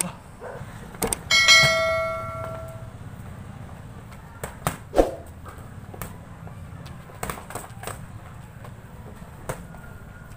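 A couple of quick clicks, then one bell ding that rings and fades over about a second and a half, the notification chime of a subscribe-button overlay. After it come scattered sharp smacks of boxing gloves landing during sparring, over a low steady hum.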